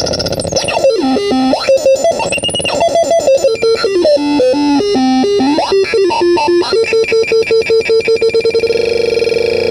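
Homemade crystal radio noise synth playing stepped electronic tones that jump back and forth between a low and a higher pitch. About seven seconds in it switches to one note stuttering rapidly, about eight times a second, which smooths into a steady buzzing tone near the end.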